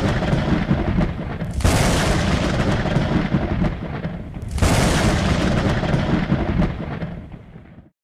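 Thunder sound effects for an animated logo sting: rolling thunderclaps that break in sharply and die away, a fresh clap about one and a half seconds in and another about four and a half seconds in, fading out near the end.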